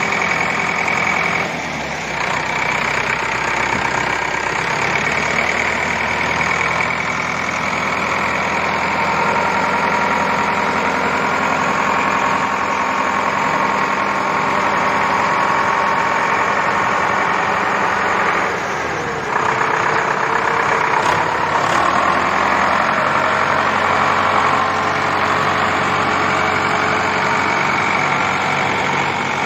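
Sonalika 60 tractor's diesel engine running at a steady idle, its note dipping and then picking up again briefly about two-thirds of the way through.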